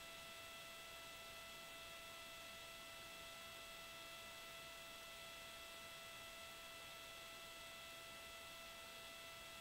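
Near silence: a faint, steady electronic hum with hiss, unchanging throughout.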